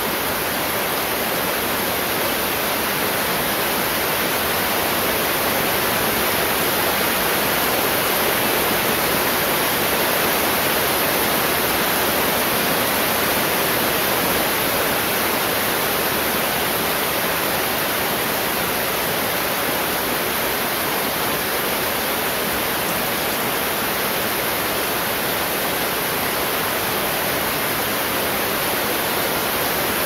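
Heavy rain falling steadily, a dense, even hiss with no thunder.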